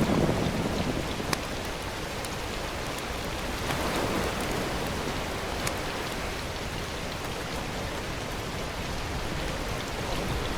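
Steady rain falling: an even hiss with a few sharp ticks of single drops.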